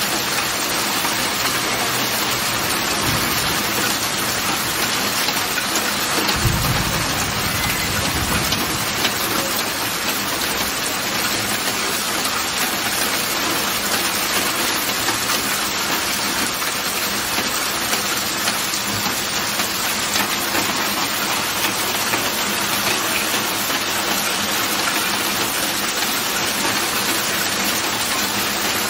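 Heavy rain falling steadily in a thunderstorm, a dense even hiss, with a brief low rumble about six and a half seconds in.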